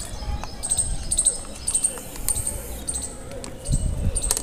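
People gulping water from disposable plastic cups and setting the cups down on a plastic table, with scattered light clicks and knocks and a few heavier thumps near the end.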